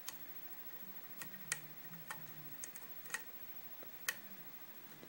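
Hook pick working the spring-loaded pin stacks of a 5-pin Kwikset KIK lock cylinder under tension: light, sharp metallic clicks, about ten, at irregular intervals.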